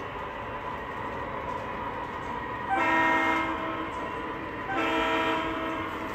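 O scale model diesel locomotive's onboard sound system sounding its air horn twice, a long blast then a slightly shorter one, over a steady running hum.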